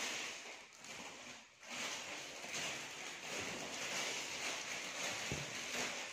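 Clothes being rummaged and shifted by hand, a continuous rustling swish with a short lull about a second and a half in.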